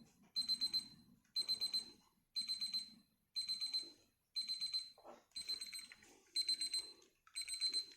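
Digoo DG-AN0211 alarm clock sounding its alarm: a high electronic beep in quick groups of about five or six, one group roughly every second, repeating evenly.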